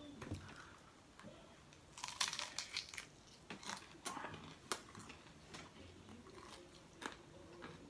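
Fresh cabbage leaves crackling as they are torn and bitten, with close-up crunchy chewing of a cabbage-and-pizza mouthful: a quick run of crisp crackles about two seconds in, then single crunches every second or so.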